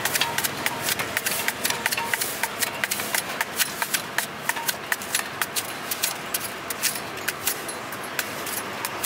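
Large knife slicing through a crisp apple held in the hand, cutting it into wedges: a quick, irregular run of sharp cutting clicks, several a second.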